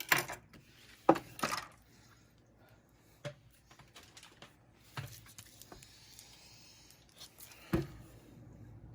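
Board game packaging and cardboard being handled and unpacked: scattered sharp taps and knocks, a few close together in the first couple of seconds and a louder one near the end, with faint rustling in between.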